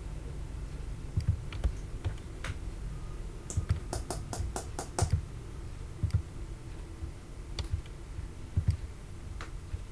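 Computer keyboard clicking: scattered single keystrokes, with a quick run of about seven clicks a little before the middle, over dull low thuds about once a second.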